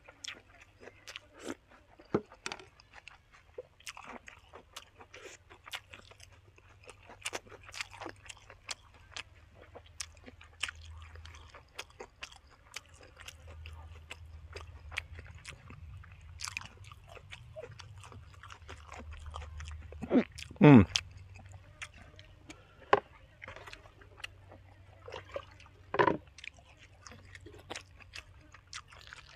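Close-up eating sounds: a person biting and chewing boiled chicken, long-bean salad and raw vegetables, with irregular crisp crunches and mouth clicks. About two-thirds of the way through comes a short, louder sound that falls in pitch.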